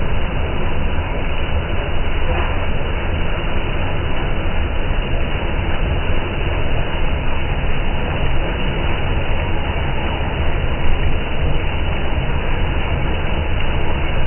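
Combine harvester running steadily while harvesting wheat: a dense, continuous machine noise, heaviest in the low end, with no breaks.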